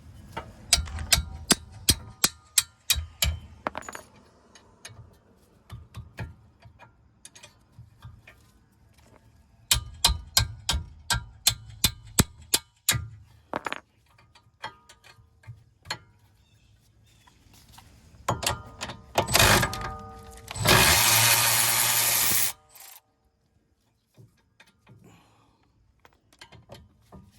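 A ratchet wrench clicking in quick runs as the 17 mm caliper bracket bolts are turned out, with a loud whirring burst of about two seconds near the end.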